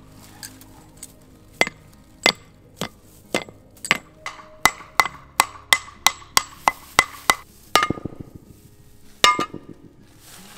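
Hammer striking a metal wellhead cap over and over to get it open, sharp clanks with a short metallic ring. The blows come about two a second, speed up to about three a second in the middle, and finish with a few more spaced blows near the end.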